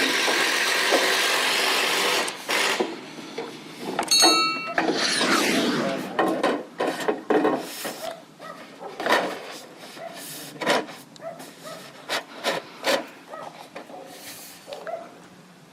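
Aluminum rain gutter being handled and set in place: a steady scraping for about two seconds, then scattered knocks and rattles, with a brief high squeak about four seconds in.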